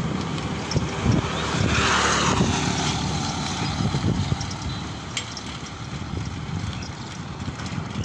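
Riding noise from a bicycle on a paved road: irregular low rumble and wind on the microphone. A motorbike passes about two seconds in, as a brief swelling hiss that fades.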